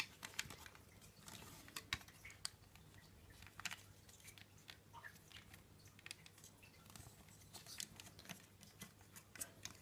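Faint, scattered light clicks and taps of hard plastic being handled, as the charging cable is pressed into the channel on the back of a Dyson V8 wall docking station. A faint low hum runs steadily underneath.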